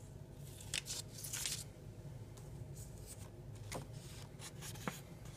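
Light rustling and handling of cigars in their box, with a few short rustles in the first second and a half and two small clicks near the end.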